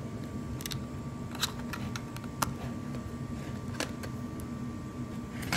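Scattered light clicks and knocks of the recording phone being handled and propped up, about ten in all, over a steady low hum.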